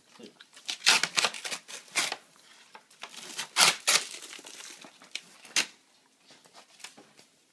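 White tissue paper crinkling and rustling as it is pulled from a gift bag and handled, in a series of loud rustles that die away near the end.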